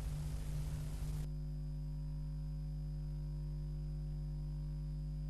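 Steady low electrical hum with a faint hiss over it. The hiss cuts off abruptly about a second in, leaving only the hum.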